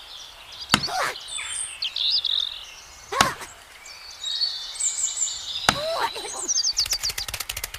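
An axe chops into wood three times, about two and a half seconds apart, over birds chirping. A fast rattle of clicks comes near the end.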